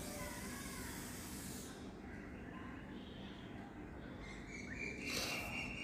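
Faint rustling of cotton cloth being handled and slid across a table, with a short louder rustle about five seconds in. A steady high tone starts just before that rustle.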